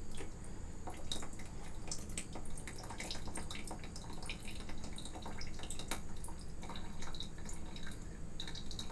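Water dripping irregularly from the disconnected outlet hose of an RV water pump into a small dish, as the residual water in the line drains out.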